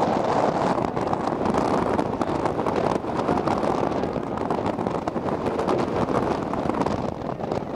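Wind buffeting the camcorder's microphone: a steady rushing, rumbling noise that flickers slightly in level, with no clear single event standing out.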